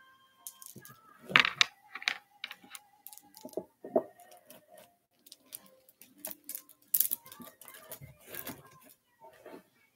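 Glass beads of a long vintage Vendome necklace clicking and rattling against each other as the strands are handled and draped over a display neck form, in irregular bursts of clatter.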